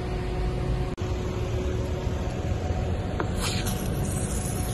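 Steady low background rumble, broken by an abrupt cut about a second in. Past the middle comes a brief hiss of an aerosol snow-spray can squirting foam onto a car window.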